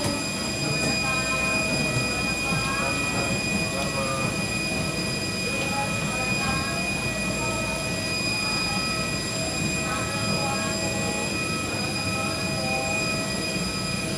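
Airliner cabin noise: a steady rumble and rush of engines and airflow with a constant high whine. Faint voices sit underneath.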